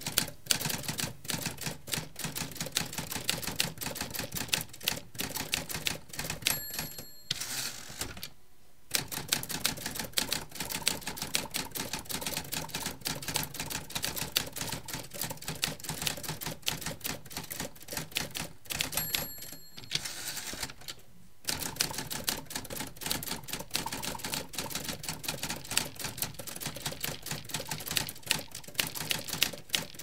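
Manual typewriter typing in rapid key strikes. Twice, about six seconds in and again near nineteen seconds, the end-of-line bell rings, the carriage is returned with a sliding rush, and after a brief pause the typing starts again.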